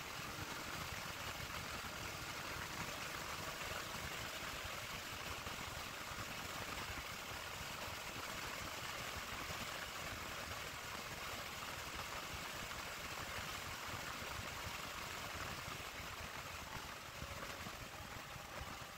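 Steady rush of wind and engine noise from a Yamaha Tracer 900 GT three-cylinder motorcycle cruising at highway speed, easing off slightly near the end.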